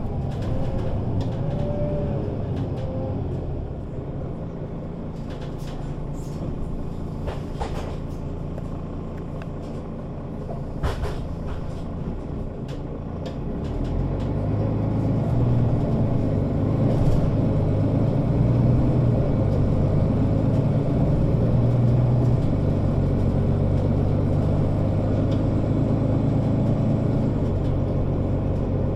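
Mercedes-Benz O 530 Citaro Facelift city bus heard from inside the passenger cabin: the engine runs softly, with scattered rattles and clicks, then about halfway through it grows louder and settles into a steady drone as the bus drives on under power.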